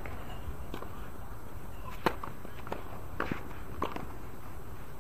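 Tennis rally on a hard court: a series of sharp racket-on-ball hits and ball bounces, the loudest about two seconds in, over a steady low outdoor background noise.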